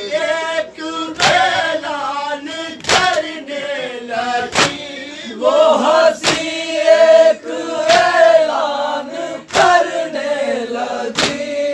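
Men's voices chanting an Urdu noha, a Muharram lament, in unison. A sharp slap falls about every second and a half, in time with the chant: the chest-beating (matam) of mourners.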